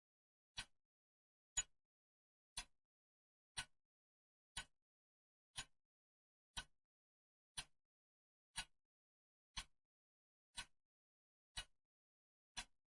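Clock ticking steadily, one sharp tick each second, each tick followed closely by a softer click.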